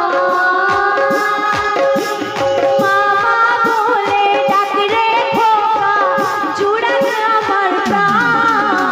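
Qawwali music: hand drum strokes with bending bass notes keep a steady beat under a wavering melody and a held drone note.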